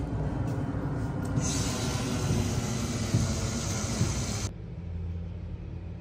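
Outdoor background noise: a rough low rumble, with a hiss joining it about a second and a half in, that cuts off abruptly after about four and a half seconds, leaving a quieter steady low hum.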